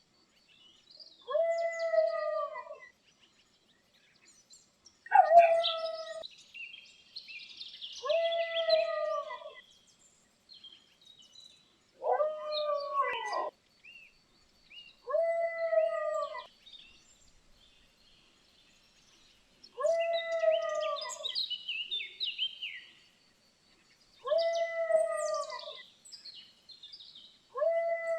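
A dog moaning over and over: about eight drawn-out, pitched calls, each roughly a second long and arching slightly up then down, coming every three to four seconds. Birds chirp faintly between the calls.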